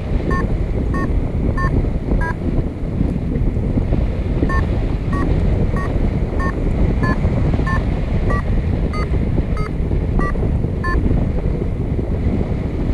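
Wind rushing hard over the microphone in flight, with a paragliding variometer beeping in short, evenly spaced tones about one and a half a second. The beeps pause for about two seconds a couple of seconds in, then resume and climb slightly in pitch for a few beeps later on. This is the vario's climb tone, the sign that the glider is rising in a thermal.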